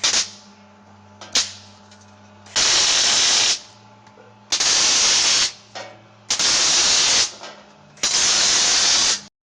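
Two sharp clicks, then four bursts of steady hissing, each about a second long, over a low steady hum.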